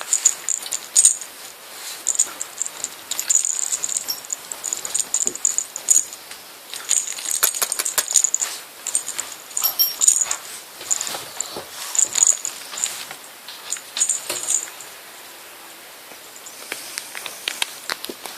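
Siberian kittens at play, batting about a small toy that rattles and jingles: irregular bursts of light clicks and metallic jingles, dying down for the last few seconds.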